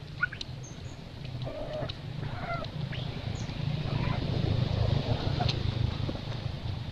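Two short animal calls of steady pitch in the first few seconds, with a few thin rising squeaks, over a steady low rumble that swells loudest after the middle.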